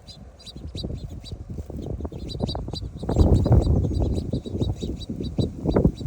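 Small birds giving short, high chirps in quick succession, about four a second, over a louder low rustling, rumbling noise that swells about three seconds in.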